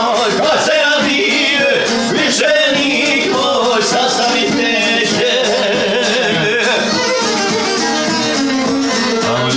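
Live folk music: a man singing while bowing a violin, backed by the steady strumming of a long-necked plucked string instrument.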